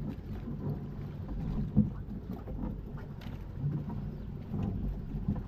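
Low rumble of wind and water aboard a small fishing boat, with a few sharp knocks scattered through it, the loudest about two seconds in.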